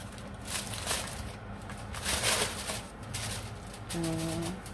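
Aluminium foil being crinkled and peeled off a glass baking dish, a rustling crackle that is loudest about two seconds in. A short voiced sound follows near the end.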